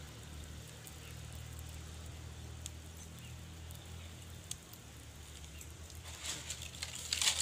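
Small wood fire crackling, with scattered faint clicks and a cluster of louder crackles near the end, over a low steady rumble.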